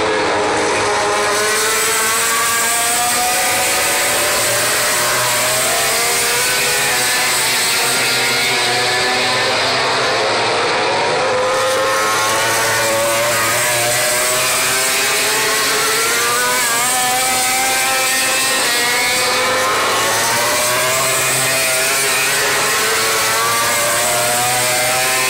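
Several 800 cc four-cylinder MotoGP race bikes at full throttle, their engine notes rising in repeated sweeps as they accelerate and change gear.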